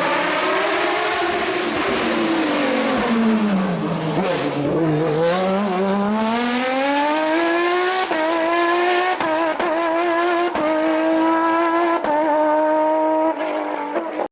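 Racing car engine lifting off, its pitch falling as the car slows, then accelerating hard with rising revs and holding high revs with several brief dips near the end. It cuts off abruptly.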